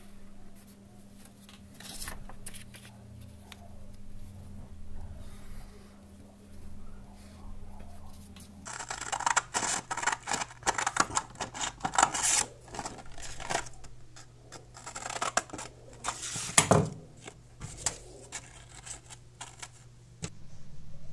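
A pen marking a line on the paper back of a sandpaper sheet makes faint scratches. From about nine seconds in, scissors cut through waterproof silicon carbide sandpaper in a long run of sharp snips and paper crackle.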